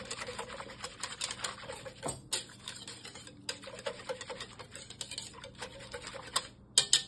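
A whisk clicking and scraping rapidly against a bowl as sourdough starter is mixed into water, with a short pause near the end.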